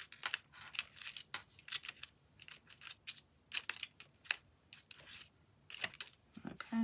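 Irregular small clicks, taps and scratchy rustles of craft supplies and paper pieces being handled and dabbed on a work surface.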